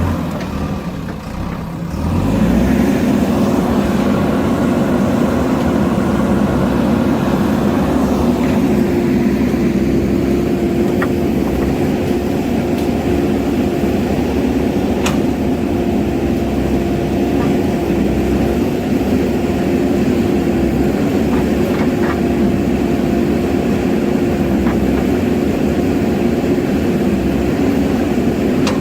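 JCB backhoe loader's diesel engine running, picking up about two seconds in and then running steadily, with a few faint knocks.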